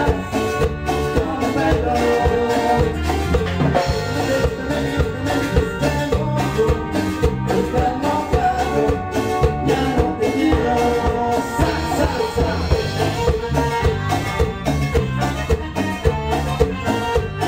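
Latin band music playing a medley with drums and a steady dance beat.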